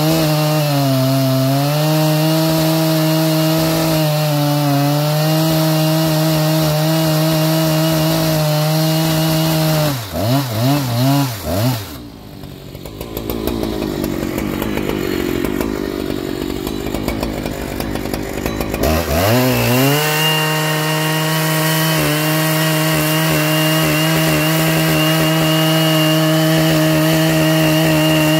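Husqvarna 3120XP two-stroke chainsaw cutting into a large redwood log at full throttle, the engine note dipping slightly as it loads in the cut. About ten seconds in the revs waver and fall away to a low idle for several seconds, then climb back to full throttle and hold steady in the cut again.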